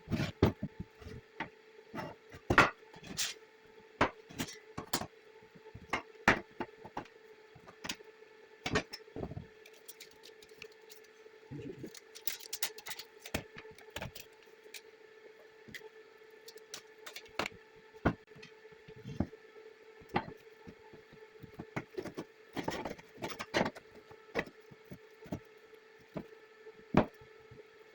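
Irregular knocks, taps and clicks of hand work with tools and metal parts, some sharp and loud, spaced unevenly, over a steady low hum.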